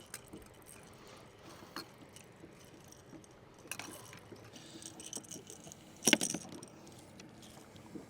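Faint metallic clinks and knocks of fishing gear being handled in a boat, with a louder clatter about six seconds in.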